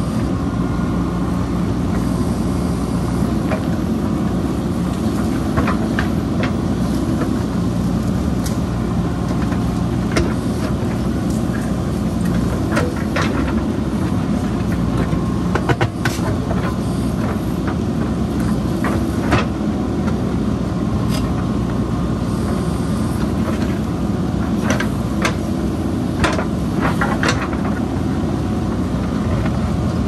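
JCB backhoe loader's diesel engine running steadily under working load, with scattered sharp knocks and clatters as the bucket digs into the stony hillside.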